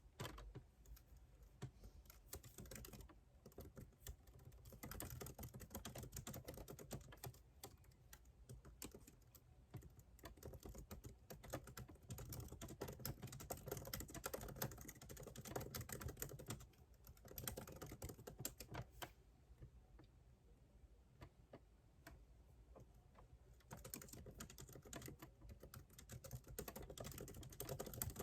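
Typing on a computer keyboard: quick runs of soft key clicks broken by short pauses.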